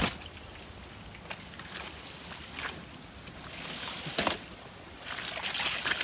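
Splashing and sloshing of shallow muddy ditch water as it is worked through by hand in search of fish. There is a sharp knock at the start and scattered small splashes, and the splashing becomes busier near the end.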